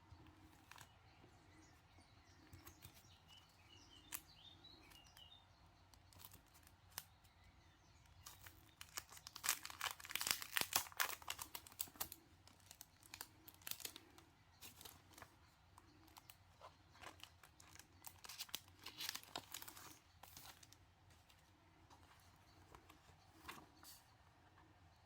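Packaging crinkling and rustling as it is handled and opened, in two busier spells. Faint bird chirps come through an open window near the start.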